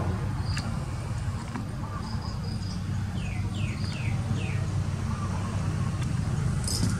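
Steady low motor rumble in the background, with four quick falling chirps about halfway through and a brief hiss near the end.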